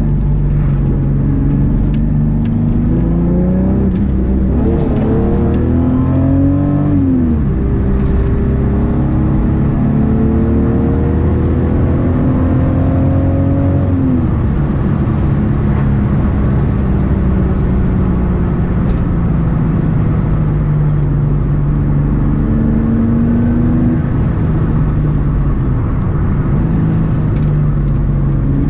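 VW Golf Mk2's VR6 engine and exhaust heard from inside the cabin, pulling hard with the revs climbing and dropping sharply at two upshifts, about seven and fourteen seconds in. Afterwards the engine note slowly falls as the car eases off, then climbs again near the end.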